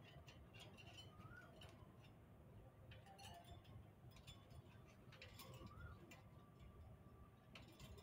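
Faint, scattered clicks of ring-necked parakeets moving on the wire cage, with a few soft, short chirps.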